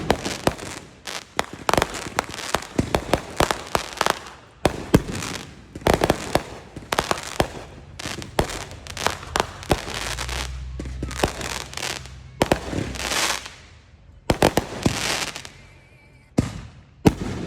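Fireworks going off close by: a dense run of sharp bangs and crackling pops, thinning out into short lulls near the end.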